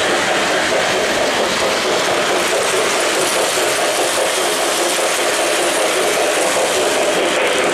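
Lionel O-scale J1e Hudson model steam locomotive and its train running on three-rail track: a steady, even noise of metal wheels on the rails and the running gear, with no breaks.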